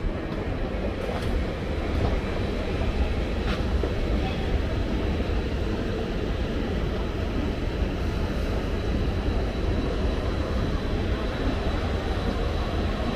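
Steady low rumble in a deep underground metro station, with a thin high whine held throughout.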